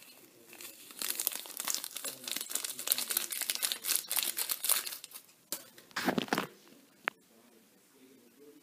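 Small clear plastic bag crinkling as it is handled and tipped out over the flour in a bread-maker pan, for about four seconds. Then come two short rustles and a single sharp click.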